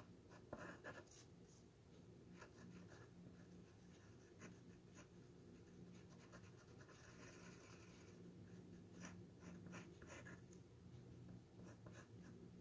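Faint scratching of a thin black Sharpie marker drawing on the wooden head of a spoon, in short, irregular strokes over a low steady hum.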